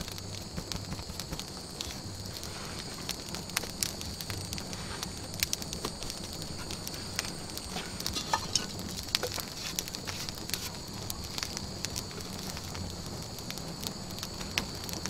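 Open fire of dry grass and sticks crackling, with scattered sharp pops, over a steady high-pitched trill of night insects.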